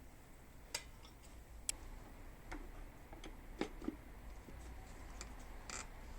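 A handful of light, irregular clicks and taps, about six in all, from small parts or tools being handled, over a faint low hum.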